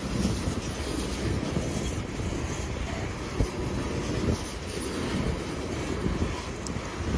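Coal cars of a freight train rolling past: a steady rumble of steel wheels on rail, with a few sharper clacks from the wheels.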